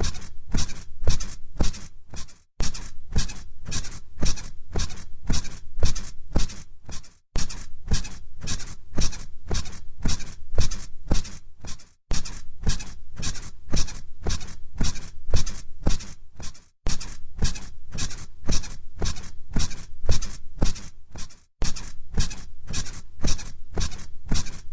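Bed springs squeaking rhythmically under repeated bouncing on a mattress, about three creaks a second, each with a low thump under it. The pattern breaks off briefly about every five seconds and starts again, like a repeating loop.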